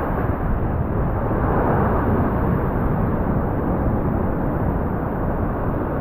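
Ocean swell surging and breaking against a rock ledge: a steady rush of surf with no distinct breaks.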